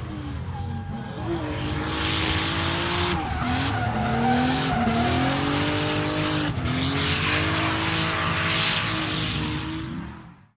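Car engine revving hard, its pitch climbing and falling over and over, over a haze of tyre skid noise, as a car does when drifting. The sound fades out near the end.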